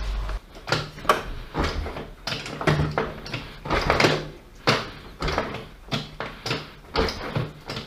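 Kymco Agility 50cc scooter's kick-start being pumped over and over, about two strokes a second, each a short mechanical clatter as the lever is pushed down and springs back up. The kick-start now returns freely after its sticking stop ring was oiled and greased.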